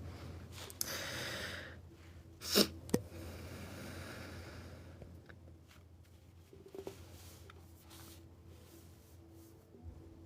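A person breathing: a long breath about a second in, a short sharp snort about two and a half seconds in, then softer breaths.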